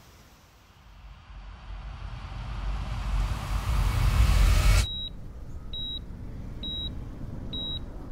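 A rushing swell with a deep rumble builds for about four seconds and cuts off abruptly. A hospital heart monitor then beeps, a short high steady beep just under once a second, in time with the pulse, over a low rumble.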